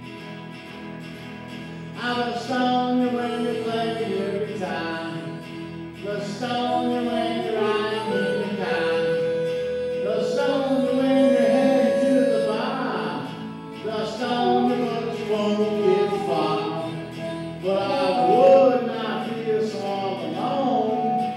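Live electric guitar playing a blues-rock song, strummed chords alone for the first couple of seconds, then a louder wavering lead melody with long held notes joins over it.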